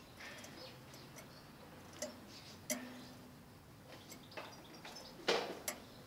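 Goldfinch × canary mule moving about its wire cage: scattered sharp clicks and taps, the loudest a knock about five seconds in with a second just after, and a few faint, short high chirps.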